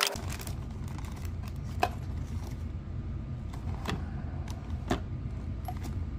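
A few light clicks and taps as bicycle hub drivers and a plastic bag are handled, over a steady low hum.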